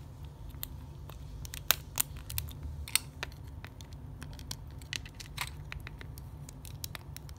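Plastic Lego bricks clicking as small round pieces are pressed onto the studs of a model and the bricks are handled: irregular sharp clicks and taps, a few louder snaps among them.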